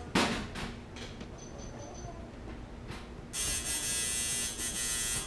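Electric tattoo machine buzzing steadily in a burst of about two seconds near the end. A loud knock comes right at the start.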